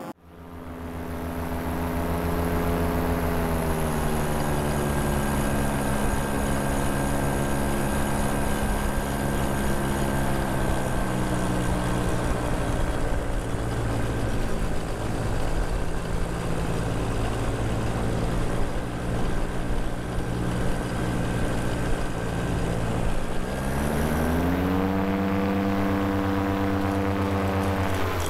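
Vittorazi Moster two-stroke paramotor engine and propeller running, fading in over the first couple of seconds. Its pitch eases slowly down as the throttle comes back for the landing, holds low, then rises sharply about 23 seconds in to a higher steady pitch.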